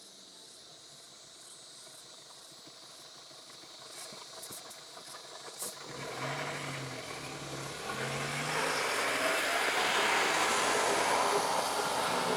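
A vehicle's engine and road noise growing louder as it draws near, a rising hiss with a low engine note coming and going.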